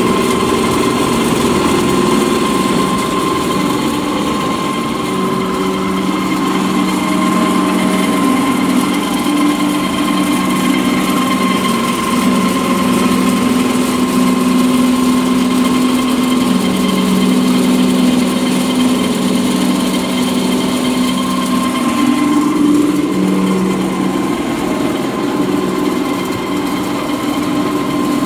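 Pellet mill running steadily while it extrudes tofu cat litter pellets, a loud mechanical hum with a constant high whine over it.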